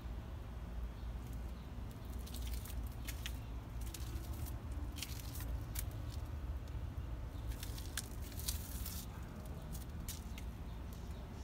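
A steady low outdoor rumble with scattered light clicks and short rustles, busiest through the middle.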